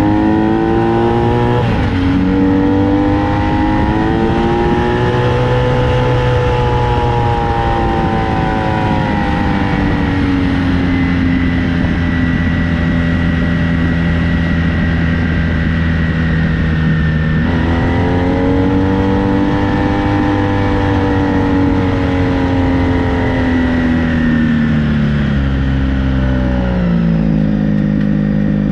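Honda VF1000 V4 motorcycle engine driving a homemade dune buggy, its pitch rising and falling as it accelerates and eases off. The pitch drops suddenly about a second and a half in and again around seventeen seconds, then steps down near the end.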